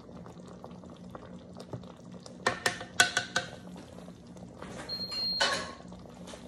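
A few sharp clicks and knocks as a wooden spatula is lifted out of the slow cooker's crock and set down. About five seconds in, a short high beep from the slow cooker's control panel as it is set to low, followed by a brief clatter.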